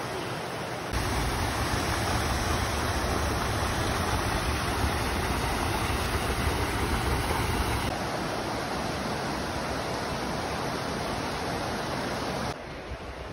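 Rushing creek water tumbling over rocks, a steady hiss, with a low rumble of wind on the microphone from about one second to eight seconds in. The sound drops abruptly in level twice, at about eight seconds and near the end.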